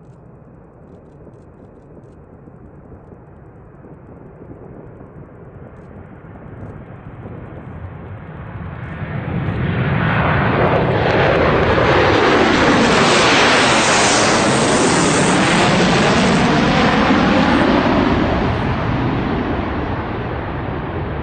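Jet aircraft flying past: the engine noise grows steadily for about ten seconds and stays loud for several seconds with a sweeping, phasing rush as it goes overhead. It then starts to fade near the end.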